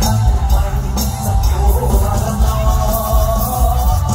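Loud amplified live band music from a mor lam stage show, with heavy bass and a steady drum beat under the melody.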